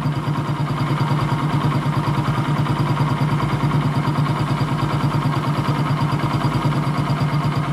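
Carburetted motorcycle engine idling steadily with a regular pulse while the carburetor's air-fuel mixture screw is turned clockwise, leaning the mixture.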